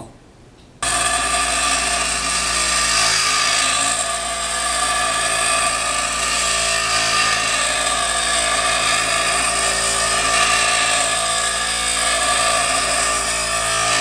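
Bench grinder running while the steel jaws of a pair of crimping pliers are ground against its wheel: a steady motor hum with a harsh grinding hiss. It cuts in abruptly about a second in.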